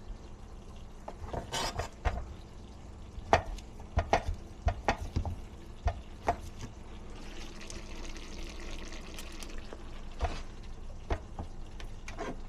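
Food being stirred in a hot frying pan: a utensil clacks and knocks against the pan at irregular moments, with a steady hiss for about two seconds past the middle.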